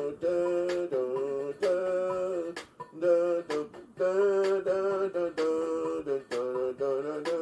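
Music: a held, slightly wavering melody line over a light click-like beat about once a second.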